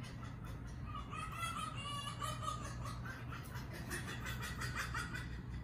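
High-pitched animal calls: a run of wavering, chirping squeals from about a second in until near the end, over a steady low hum.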